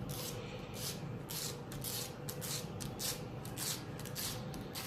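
Sticky dust-removal sticker being dabbed and rubbed over a smartphone's glass screen, a quick series of soft rustling strokes, about three a second.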